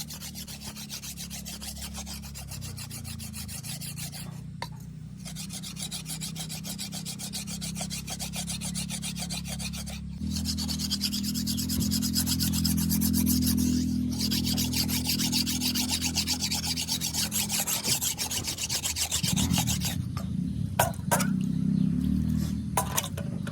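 A blade being sharpened: a long run of fast, even rasping strokes over a low hum, with short breaks about four and ten seconds in and louder strokes after that. A few separate clicks come near the end.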